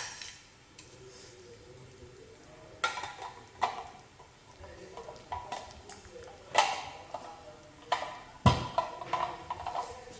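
Irregular clinks and knocks of manual meat grinder parts being handled and fitted together, with a heavier thud about eight and a half seconds in followed by a quick run of small knocks.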